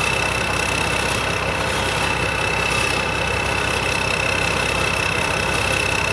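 Combine harvester's diesel engine running steadily at idle, with a steady high whine over it.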